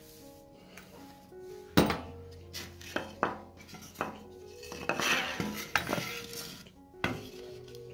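Wooden boards and a cordless drill being knocked and set down on a metal workbench: one sharp knock about two seconds in, then several lighter knocks and a scrape of wood sliding on the metal, over soft background music.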